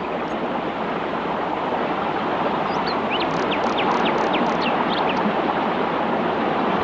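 Waterfall rushing steadily into a pool, an even hiss of falling water. A run of short high chirps comes in about three seconds in and lasts a couple of seconds.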